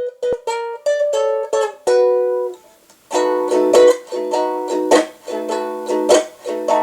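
Solo ukulele playing an instrumental intro. It opens with a short run of single plucked notes, pauses briefly about three seconds in, then goes into rhythmic strummed chords in waltz time.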